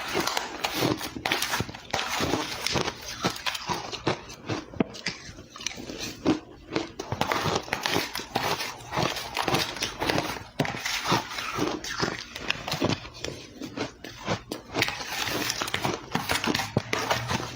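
A person biting and chewing ice close to the microphone: dense, crisp crunching and crackling, bite after bite.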